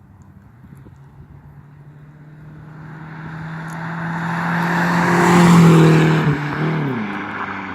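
Car with an aftermarket Cherry Bomb muffler driving past: the exhaust note grows steadily louder as it approaches, is loudest about six seconds in, then drops in pitch as it passes and begins to fade away.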